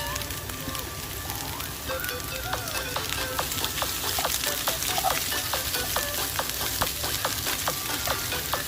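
Food sizzling and crackling as it fries in a pan, with many quick pops.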